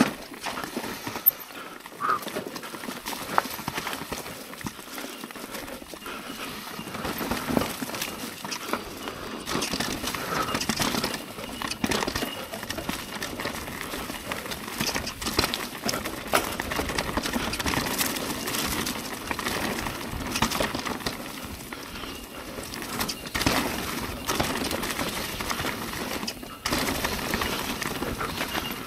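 Mountain bike ridden along a dirt singletrack: tyres rolling over the dirt, with a constant stream of quick knocks and rattles from the bike over bumps and roots.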